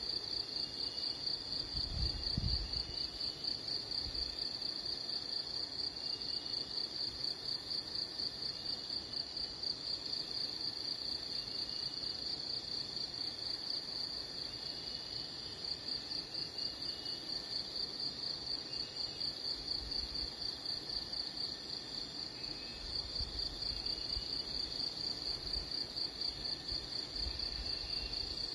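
Steady high-pitched insect trill, pulsing rapidly without a break.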